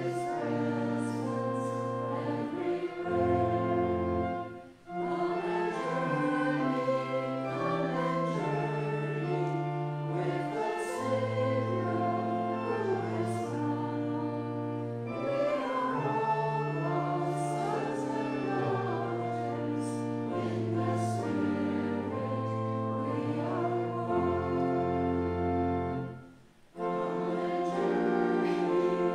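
A congregation singing a hymn with church organ accompaniment, the organ holding steady chords under the voices. The sound breaks off briefly twice, about five seconds in and near the end, between lines.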